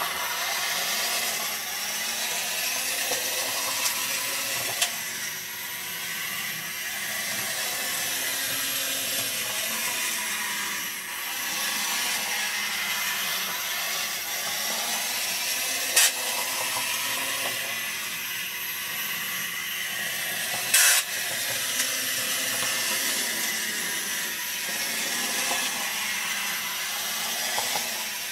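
Small DC gear motors in a Tamiya gearbox driving a little two-wheeled robot across a laminate floor: a steady whirring hiss that swells and dips slightly. Two sharp clicks come past the middle, a few seconds apart.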